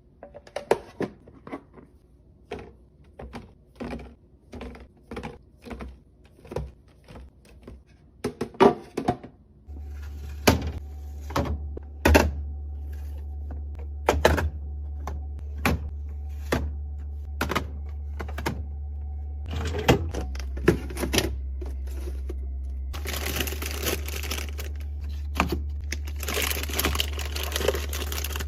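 Containers, lids and packages being handled and set down on refrigerator shelves, making a steady run of sharp clicks, clacks and thunks. A steady low hum comes in abruptly about ten seconds in, and a longer stretch of hiss comes in near the end.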